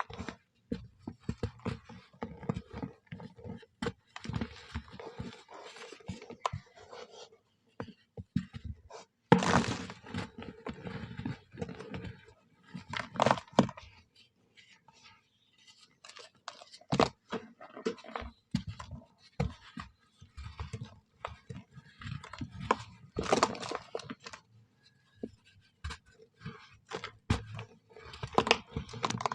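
Soft brown sand being crushed and crumbled by hand, making crunching, scraping and tapping sounds in irregular bursts with short pauses.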